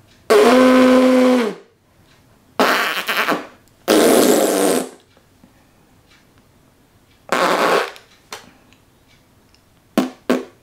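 Fake fart noises blown with the lips and mouth: about six separate blasts. The first is a long, pitched buzz, and the last two are short and quick near the end.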